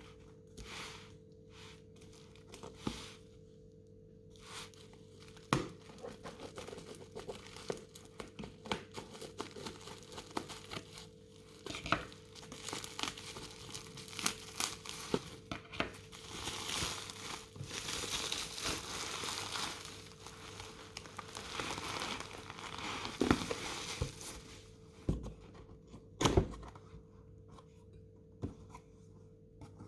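Packaging being handled: crinkling and tearing, with many small clicks and rustles that thicken into a steady rustle in the middle, then a couple of sharp knocks near the end. A faint steady hum runs underneath.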